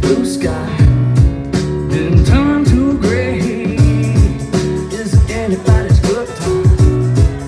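Live band playing with banjo, keyboard and drums, and a voice singing the melody over a steady drum beat.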